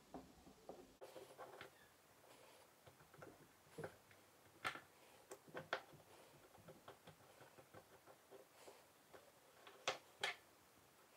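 Faint, scattered small clicks and taps of a stainless-steel watch case being handled and turned against a metal Horotec bench press, with a sharper pair of clicks near the end as the case comes off the tool.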